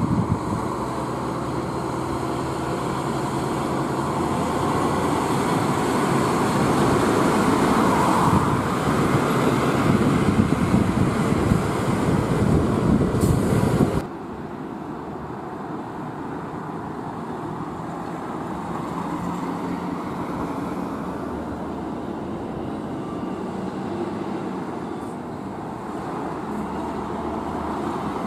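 Heavy diesel trucks pulling away. First a Mitsubishi Fuso truck's engine grows louder through the first half and cuts off suddenly about halfway. Then a Hino Ranger SG 260TH's diesel engine runs more quietly and steadily.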